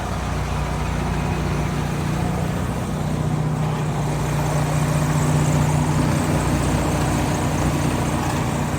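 Semi truck's diesel engine idling steadily, a low even drone.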